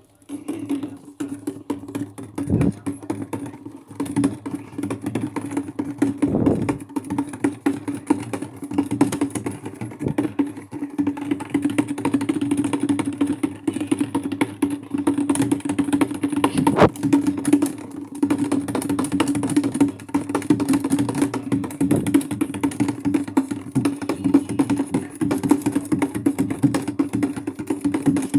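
Maytag washing machine running its delicate cycle: a steady motor hum under a rapid, irregular clatter of clicks and knocks.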